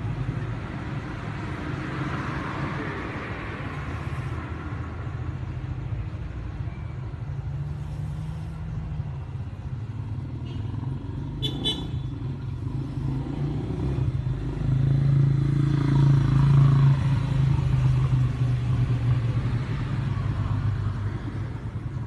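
Steady low hum of a running engine, louder for a few seconds about two thirds of the way through, with one brief click near the middle.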